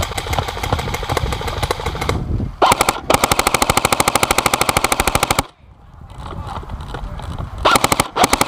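Airsoft electric rifle firing full-auto in rapid bursts: a run of shots at the start, a short burst about two and a half seconds in, a longer burst of about two seconds, then after a brief pause another burst near the end.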